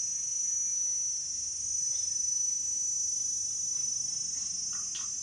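A chorus of insects shrilling steadily in a continuous high-pitched band, with a few faint taps near the end.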